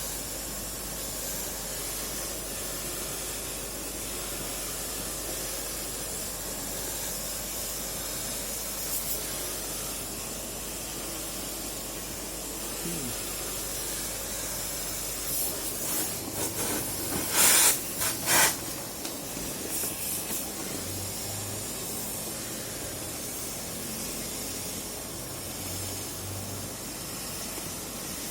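Steady hissing spray, with a few short, much louder bursts about 17 to 18 seconds in.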